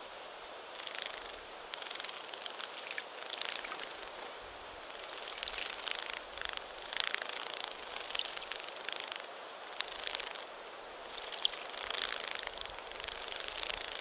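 Red-browed finches bathing in a shallow water saucer: repeated bursts of light, crackly splashing as they dip and flutter their wings, with a few thin high chirps.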